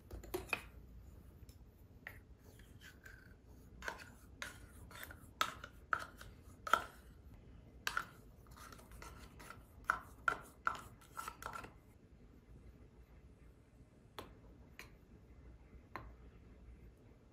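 A wooden spoon knocking and scraping plain yogurt out of a small plastic cup into a wooden bowl, in a string of short knocks and scrapes. Near the end come a few softer taps as the spoon spreads the yogurt level.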